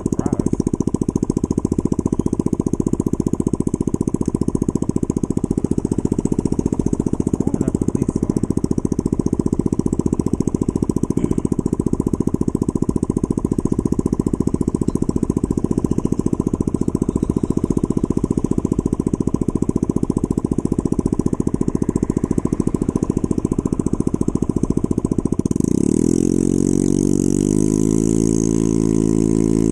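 Honda Ruckus scooter's 49cc single-cylinder four-stroke engine idling steadily at a stop. About 26 seconds in it revs up as the scooter pulls away, its pitch climbing, with wind rush rising on the microphone.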